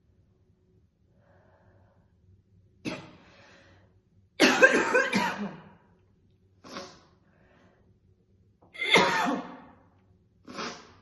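A woman's heavy smoker's cough. Five bouts of harsh coughing start about three seconds in, the two longest and loudest around the middle and about two-thirds through.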